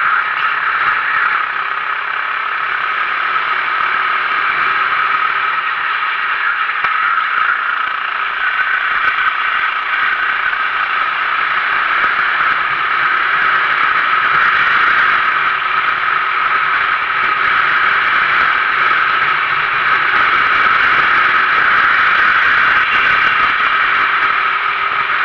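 Onboard sound of a Sodi RT8 390cc kart at racing speed: its single-cylinder four-stroke engine running under load, mixed with a steady, hissy rush of wind and track noise that changes little in pitch.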